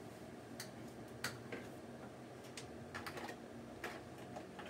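Faint, irregular clicks and light knocks of spice jars and bottles being shifted around on a kitchen cabinet shelf, over a steady low hum.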